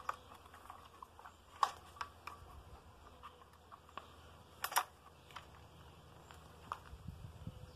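A few faint, sharp clicks and taps, with a sharper double click about halfway, from a screwdriver and hands working on the plastic housing of a Husqvarna 120 Mark II chainsaw whose engine is not running.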